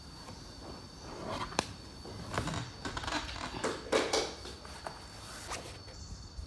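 A laptop being lifted off a wooden table and slid into a fabric sleeve: scattered light clicks and knocks with cloth rustling.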